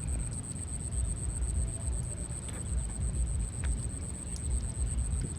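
Low, uneven wind rumble on the microphone, with a steady high-pitched whine above it.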